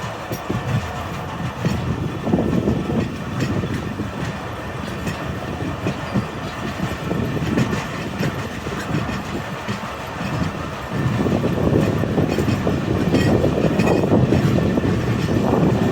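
Hazara Express passenger train running along the track: a steady rumble of wheels on rail that grows louder about eleven seconds in.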